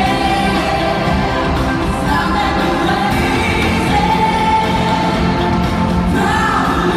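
A pop-rock band plays a song with a singer holding long notes over the accompaniment.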